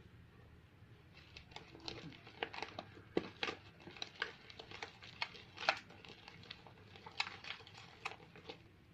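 Thickening glue-and-shaving-gel slime being stirred in a bowl: irregular sticky clicks and squelches, starting about a second in, as the mix turns stretchy after the activator drops.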